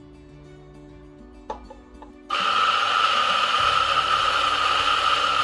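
DF64E electric coffee grinder's 64 mm flat burrs grinding beans, starting about two seconds in with a sudden steady whine that runs on to the end. A single click comes just before it starts.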